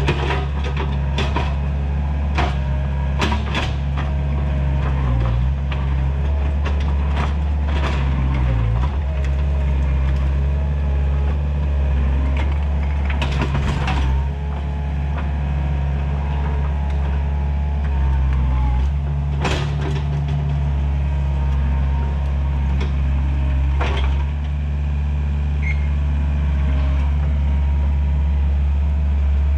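Takeuchi TL130 track loader's diesel engine running steadily under working load. Its pitch dips briefly twice as it lugs, and sharp cracks and knocks sound repeatedly throughout.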